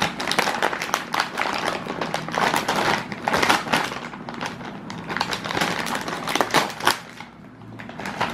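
A Lay's potato chip bag crinkling and crackling as it is pulled open and handled by hand. The crackles come thick and fast most of the way through and ease off briefly near the end.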